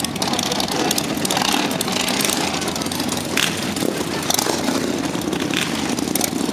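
Several cruiser motorcycle engines idling and running together, a steady mixed rumble with no single engine standing out.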